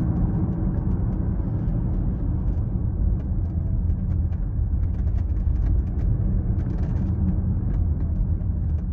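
Steady road and tyre rumble inside the cabin of a moving 2022 Tesla Model X, with faint short creaks and ticks scattered through: the interior squeaking the owner dislikes in the car.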